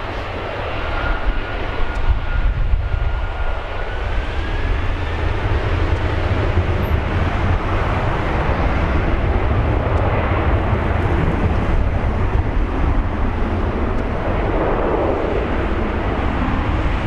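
Boeing 767-300F freighter's twin turbofan engines spooling up to takeoff thrust: a whine rising in pitch over the first few seconds, then the steady loud noise of the jets at full power as the aircraft begins its takeoff roll.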